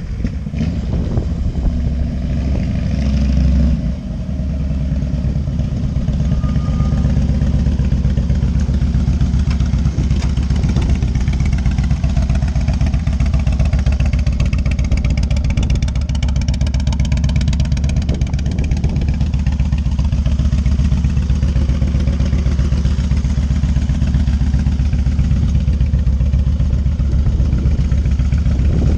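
Harley-Davidson Road King's Twin Cam 88 V-twin engine running steadily on a test ride, a little louder in the first few seconds.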